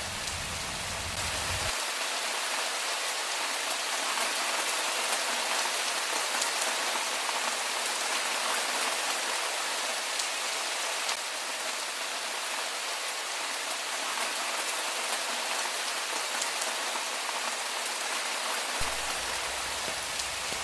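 Steady rain falling: an even hiss with scattered faint drop ticks. A low rumble underneath drops out about two seconds in and comes back near the end.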